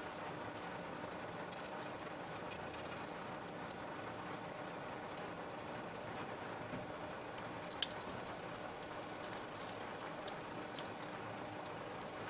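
Crucible of molten bronze crackling and fizzing over a steady hiss as phosphor copper deoxidizer reacts in the melt and smokes off, with one sharp click about eight seconds in.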